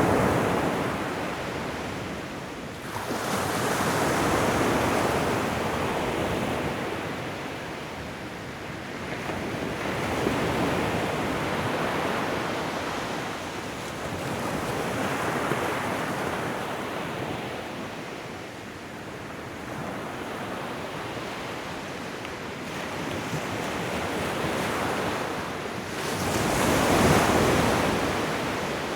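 Ocean surf washing onto a shore: waves swell and recede in repeated surges about every five or six seconds, the loudest near the end.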